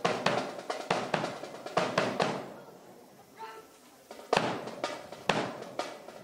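Sharp slaps and thuds of a silent drill company's rifle handling and boot stomps, in an uneven rhythm, with a pause of about two seconds in the middle before the strikes resume.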